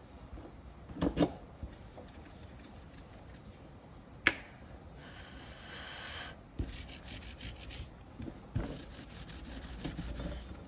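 Nail polish being wiped off a metal nail stamping plate: repeated rubbing strokes across the plate's surface through the second half. Two sharp knocks come about a second in and a single click near four seconds.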